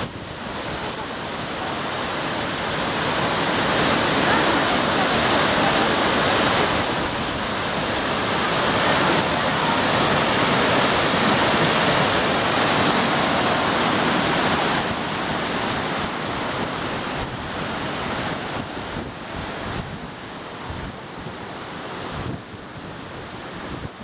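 Waterfall pouring over rocks into its plunge pool: a steady rushing of falling water. It swells over the first few seconds and drops off after about fifteen seconds.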